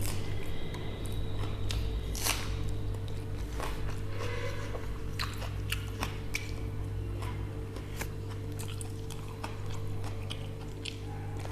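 A person chewing a mouthful of rice and dal, with scattered crunches and wet mouth clicks, over a steady low hum.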